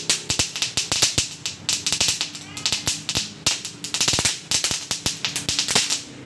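A long red firecracker belt going off, a rapid, irregular string of sharp bangs, several a second without a break.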